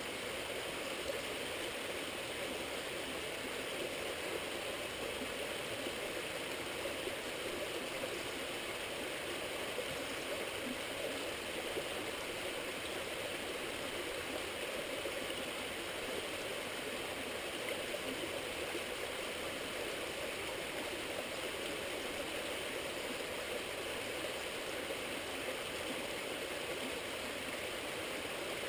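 Steady rushing of running water from a stream, an even wash of sound with no breaks.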